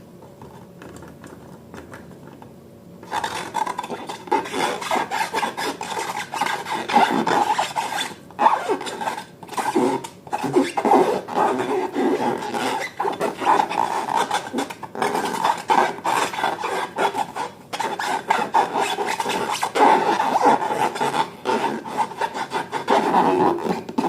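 Slime being mixed: a dense run of sticky, crackling, rasping sounds that starts about three seconds in and breaks off briefly a few times.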